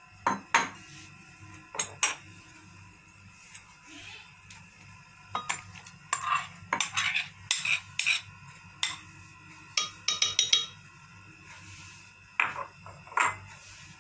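A spoon clinking and scraping against a glass blender jar as cream is spooned in on top of mango chunks. It comes as a string of sharp clinks in scattered groups, busiest in the middle.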